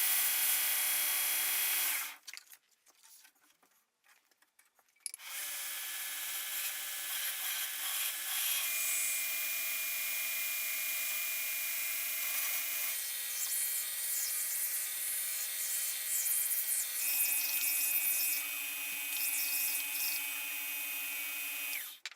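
Small electric power tool motor running with a steady whine; it stops about two seconds in, starts again a few seconds later and shifts in pitch a few times before cutting off near the end.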